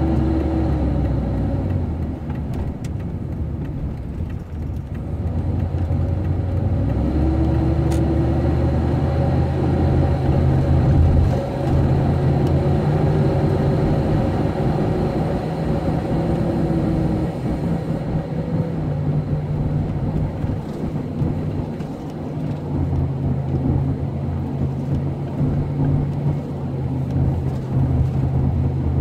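Van engine heard from inside the cab while pulling away and accelerating, its note stepping up and dropping back several times. This is the driving where the owner reports an odd noise and a loss of power when accelerating below about 30 to 35 mph.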